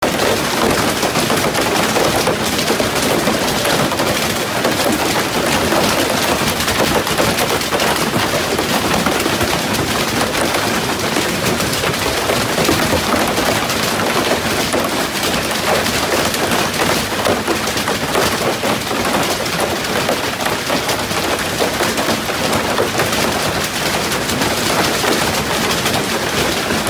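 Heavy hail pelting down, hailstones striking in a dense, unbroken clatter that holds steady.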